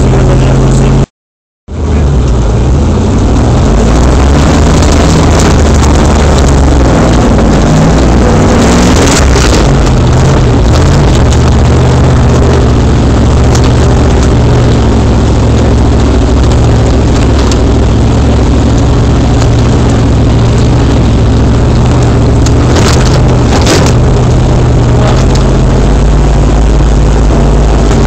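Land Rover engine running loud in the cab while driving over a rutted off-road track, its pitch rising and falling as the throttle changes. There are a few sharp knocks along the way. The sound cuts out completely for a moment about a second in.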